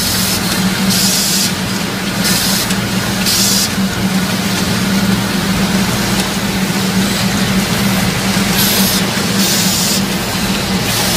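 Automatic cone-winding machine running with a steady hum, with several short bursts of air hiss.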